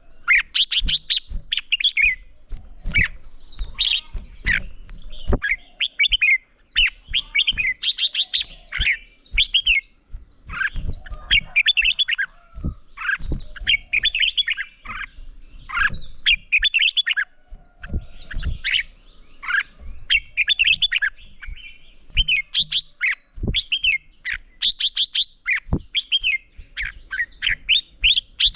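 Red-whiskered bulbuls singing their competitive 'fighting' song: bursts of quick, varied whistled phrases with rapid chip runs, repeating with short gaps. Soft low thumps come in between the phrases.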